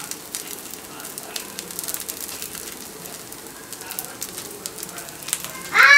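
Oil sizzling and crackling steadily in a paniyaram pan as batter balls fry, with scattered small pops. Near the end a child's high voice breaks in loudly.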